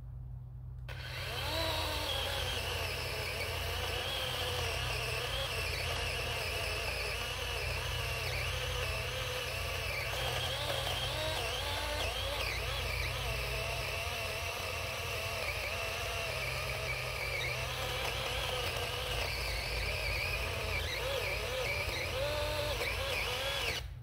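DeWalt 20V XR cordless electric chainsaw running and cutting through small trees: a steady motor whine whose pitch sags and recovers as the chain bites, starting about a second in and stopping suddenly near the end.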